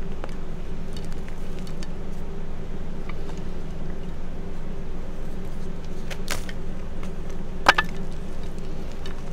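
Gym chalk chunks crumbling and crunching under the fingers in a few scattered crackles, the sharpest about three-quarters of the way through, over a steady low background hum.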